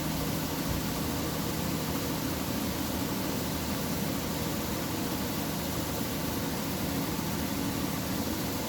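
Steady low hum with an even hiss over it, a constant machine-like background noise with no sudden sounds.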